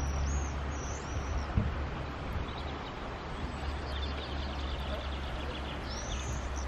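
Small birds chirping in short, high, arching notes near the start and again near the end, over a steady low rumble. There is one short knock about one and a half seconds in.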